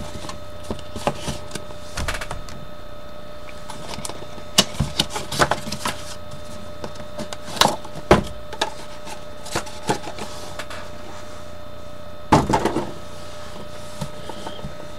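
Shrink-wrapped Topps Finest baseball card boxes being handled and opened: scattered crinkles, taps and rustles of plastic wrap and cardboard, with a short burst of crackling about twelve seconds in.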